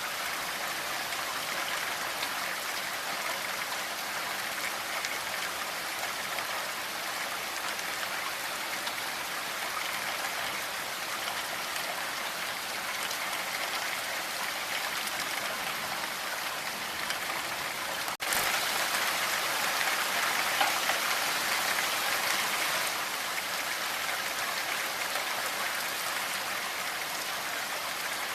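Steady rain falling, an even hiss of many drops. About two-thirds of the way through it cuts out for an instant, then comes back louder for about five seconds before settling to its earlier level.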